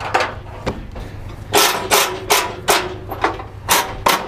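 Metal tie-down gear on a car-hauler trailer's steel deck being worked with a bar: a run of sharp metallic clanks, a few faint ones and then a steady string of about two or three a second.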